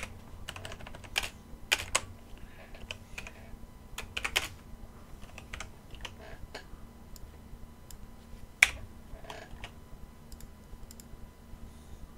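Computer keyboard being typed on: scattered, irregular keystrokes with short pauses between them, and one much louder click about nine seconds in.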